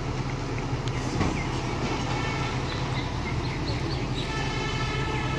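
Volvo EC210D excavator's diesel engine running steadily with an even, low hum.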